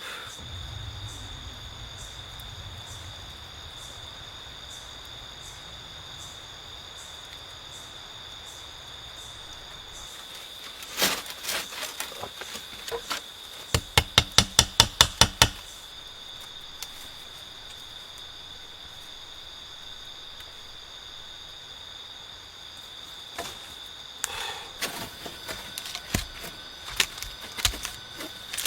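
Crickets or similar insects trilling steadily in one high unbroken tone. About a third of the way in come a few sharp knocks, then a quick run of about nine, with scattered lighter taps near the end.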